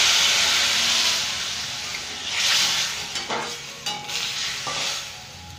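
Liquid poured into a hot kadai of radish slices frying in mustard oil sizzles and hisses loudly, then dies down with a second brief swell. Near the end a metal spatula clicks and scrapes against the pan a few times as the mixture is stirred.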